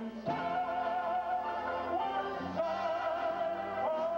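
Live banjo band music: a melody of long held notes with a wavering pitch, changing note every second or two, over the band's accompaniment.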